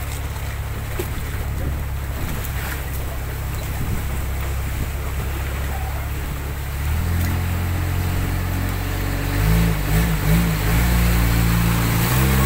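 Motorboat engine running steadily with water noise, then speeding up and getting louder about seven seconds in, its pitch wavering up and down briefly around ten seconds before holding steady.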